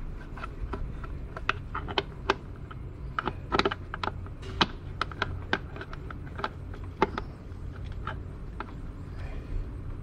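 Irregular sharp metallic clicks of a ratchet wrench with a 12 mm deep socket, worked in short strokes to loosen a stay-bracket bolt.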